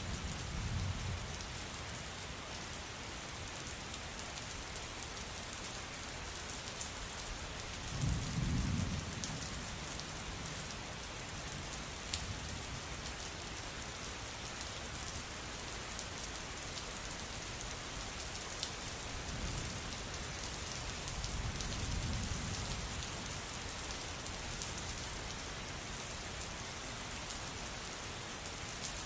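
Steady rain with sharp drop ticks, and distant thunder rumbling low three times: right at the start, about eight seconds in, and again near the twenty-second mark.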